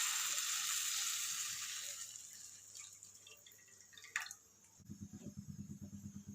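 Water poured into a hot kadai of ghee-fried ginger, garlic and carrots: the hiss fades away over about three seconds. A faint tap follows about four seconds in, then a low, fast pulsing.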